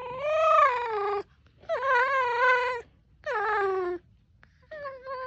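Red fox whining in four drawn-out, wavering calls, each about a second long, the last one shorter and broken up. It is an angry, complaining fox, mad that a person is walking close by.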